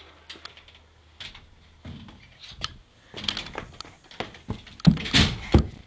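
Handling noise from a handheld camera being fumbled and swung about: scattered rustles, clicks and knocks, with a run of heavier thumps about five seconds in.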